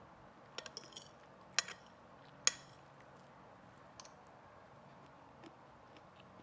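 Eating utensil clinking and tapping against a plate while cake is eaten. There is a quick cluster of light taps about half a second in, then single sharper clinks, the loudest about two and a half seconds in, and a fainter one later.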